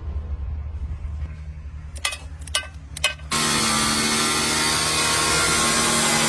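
A low rumble with a few sharp clicks, then about three seconds in a power tool starts suddenly and runs loud and steady with a constant whine.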